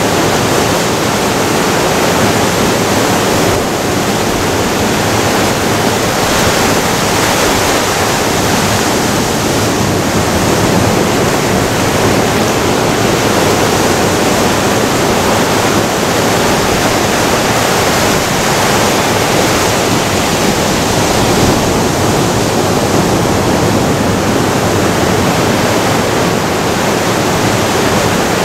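Ocean surf breaking and washing over the rocks of a rocky shore: a loud, steady rush of water.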